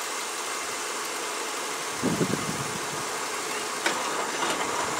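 A car engine idling steadily, with a brief low swell about two seconds in.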